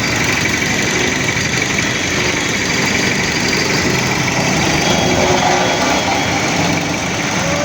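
Heavy engine running steadily at a road construction site.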